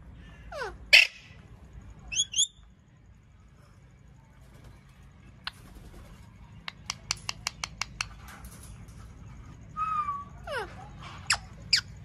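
Indian ringneck parakeets calling in short sharp screeches and chirps, some as quick falling whistles. A quick run of about seven clicks comes a little past the middle.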